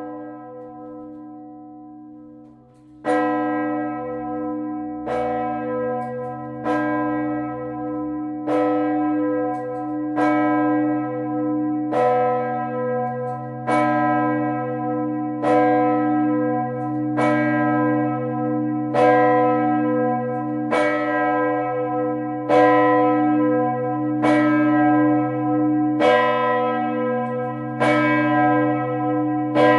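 A single large bronze church bell swinging and rung alone, its clapper striking about every 1.7 seconds. Each stroke rings out over a deep hum that carries on between strokes. One stroke comes at the very start, and the steady strokes begin about three seconds in.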